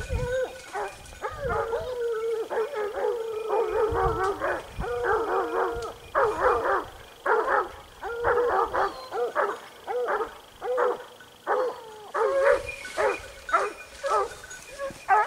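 A pack of hunting dogs baying and barking, several voices overlapping: long drawn-out bays in the first few seconds, then a steady run of barks about twice a second. This is the cry of hounds working a wild boar.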